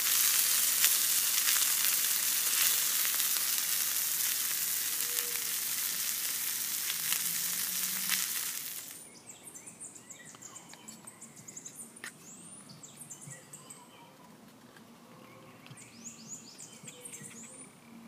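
Ham and baked beans frying in a pan, a steady sizzle that cuts off about nine seconds in; after it, quiet birdsong with short high chirps.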